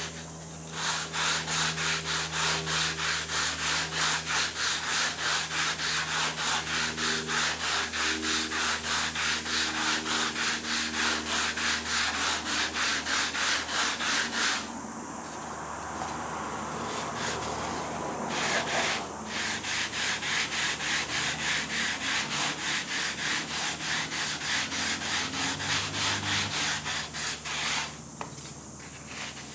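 Sandpaper rubbed back and forth along the edge of a model aircraft's aileron in quick, even strokes, about three a second, rounding the bottom edge. The strokes pause for a few seconds about halfway through, then resume.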